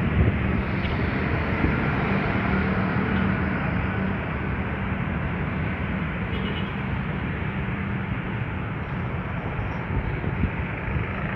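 Street traffic from motorbikes and cars on a city road, a steady engine hum under a continuous wash of road noise.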